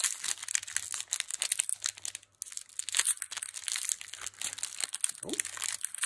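Foil wrapper of a Pokémon card booster pack crinkling and tearing as it is opened by hand, a dense run of irregular crackles.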